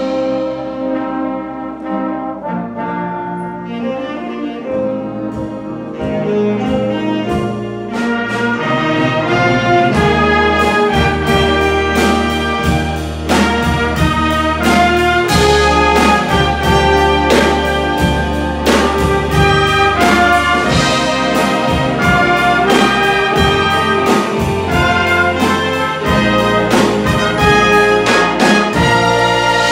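Big band playing a swing number: trumpets, trombones and saxophones over drums and bass. A softer opening passage gives way, about eight seconds in, to the full band playing louder with the drums and bass driving it.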